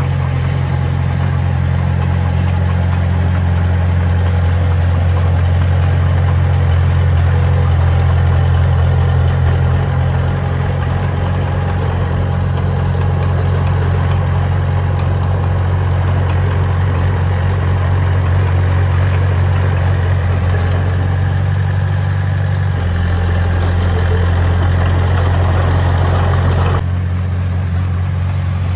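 Diesel engine of heavy construction machinery running steadily with a deep, even drone. Its tone shifts about 23 seconds in and drops abruptly about 27 seconds in.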